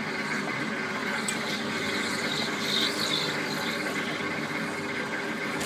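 Skylab suspended ride car travelling along its overhead rail, its drive unit running with a steady mechanical hum of several even tones.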